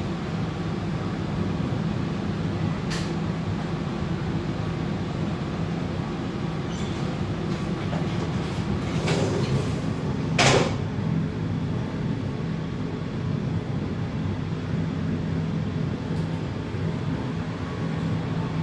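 Cikuray passenger train rolling slowly through a station: a steady low rumble and hum. Two short hisses come about nine and ten and a half seconds in, the second one louder.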